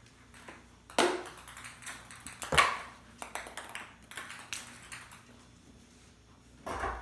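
Plastic ping pong ball clicking and bouncing across a tile floor as kittens bat it: a string of sharp taps, some in quick rattling runs. The loudest taps come about a second and two and a half seconds in.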